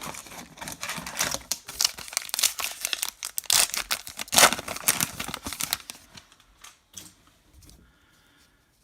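A baseball card pack's wrapper being torn open, with dense crinkling and tearing for about six seconds before it dies down.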